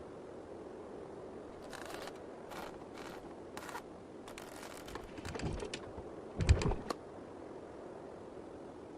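Animated-cartoon sound effects: a few short, soft clicks and rustles, then a single low thump with a click about six and a half seconds in, over a faint hiss.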